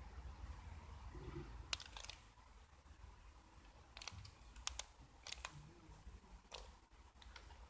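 Quiet background with a faint low rumble, broken by a handful of short, sharp clicks scattered irregularly, two close together about two seconds in and a few more in the second half.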